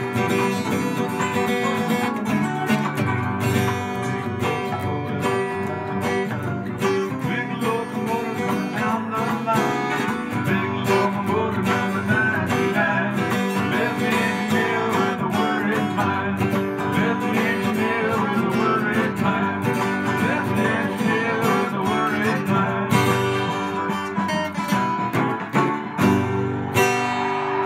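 Acoustic guitar playing an instrumental passage of strummed chords.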